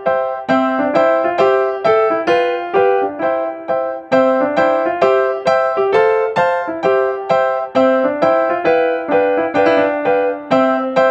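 Background piano music: a light, bouncy keyboard tune of evenly spaced notes.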